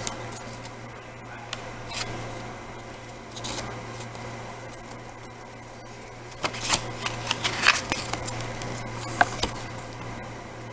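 A small paper DVD booklet being handled and its pages turned: scattered rustles and soft clicks, with a quick cluster of them from about six to eight seconds in, over a steady low hum.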